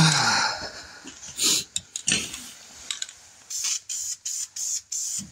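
Aerosol spray-paint can hissing: one longer spray at the start, then from a little past halfway a run of short spurts, about three a second.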